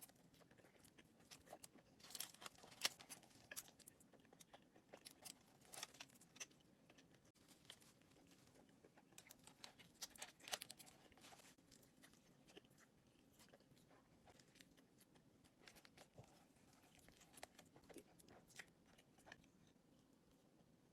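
Someone chewing and biting into a burrito, with irregular sharp mouth clicks and bite sounds coming in clusters, thickest about two to three seconds in and again around ten seconds.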